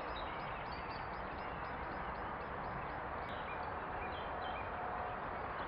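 Small birds chirping and calling in short, repeated notes over a steady outdoor hiss.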